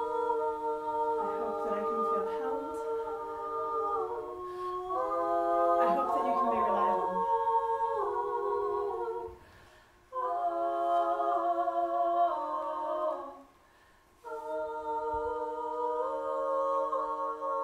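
A small group of women's voices singing wordless sustained chords a cappella. The held notes shift from chord to chord in three long phrases, with a short break before each new phrase.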